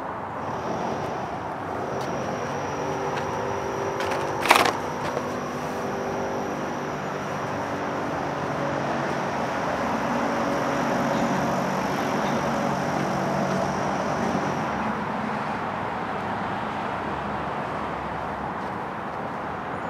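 Steady hum of running engines with a thin high whine that stops about fifteen seconds in, and one sharp knock about four and a half seconds in.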